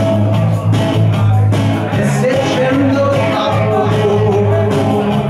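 Live rock music from an electric guitar and a bass guitar, with a man singing over a steady bass line.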